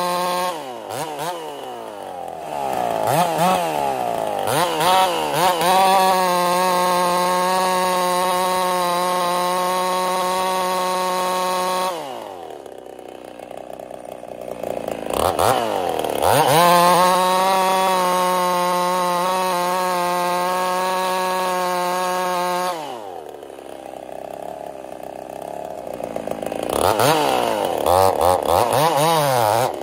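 Ported Husqvarna 55 two-stroke chainsaw cutting cookies at full throttle. It holds a steady high-pitched scream for long stretches, drops to idle twice, and revs back up each time. It is running poorly: it has lost over 1,000 RPM, which the owner takes as a sign that the top end is worn out.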